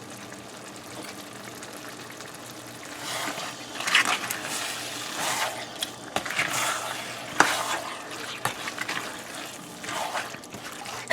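Wet chicken livers and gizzards cooking in a pot: a low steady sizzle for about three seconds, then irregular wet stirring and scraping with a spoon, with a sharp knock of the spoon on the pot about seven seconds in.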